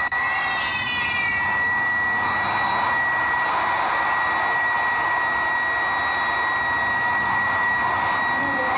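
Handheld hair dryer blowing steadily on a wet cat's fur, a constant rush of air with a steady high whine.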